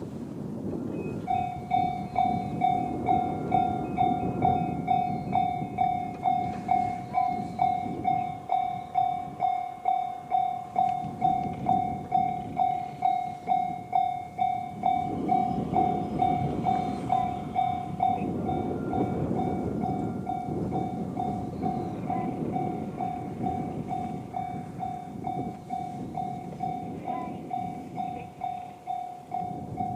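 Japanese level-crossing warning bell in the JR standard electronic tone, starting a little over a second in and ringing steadily at about two dings a second, over a low rumbling noise.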